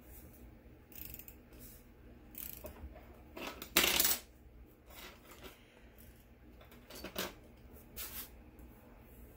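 A white-out correction tape runner worked on a paper planner page, with scattered light clicks and taps and one louder rasp about four seconds in.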